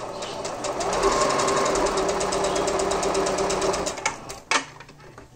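Singer Patchwork 7285Q sewing machine sewing a straight stitch: its motor hums under a fast, even needle rhythm that grows louder about a second in and stops about four seconds in. A single sharp click follows shortly after.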